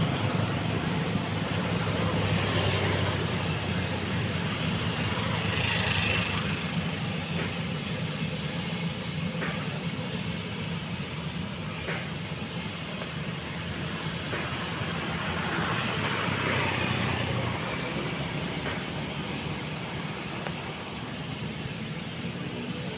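Cessna Grand Caravan's single PT6A turboprop running at low power as the plane taxis, a steady hum under a noisy rush. The deepest part of the hum drops away a few seconds before the end.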